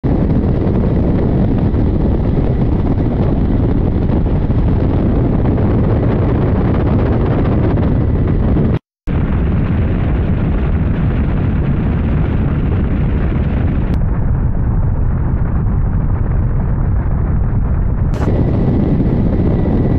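Mi-8 helicopter in flight, a loud, steady, heavy rumble of rotor and engines heard from a camera mounted outside the fuselage. The sound cuts out for a moment just before nine seconds in, the high hiss drops away a few seconds later, and a short sharp crack comes near the end.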